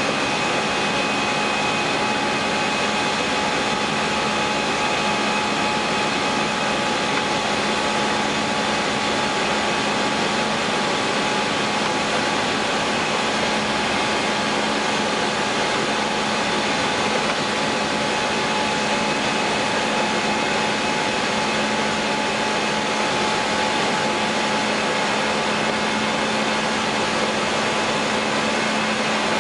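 Steady cockpit noise of an Airbus A320-200 in flight after takeoff: the constant rush of airflow and engines, with a few faint steady tones running through it.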